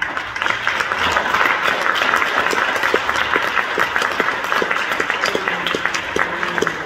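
Church congregation applauding: a dense patter of many hands clapping that builds up over the first second or so and then holds steady.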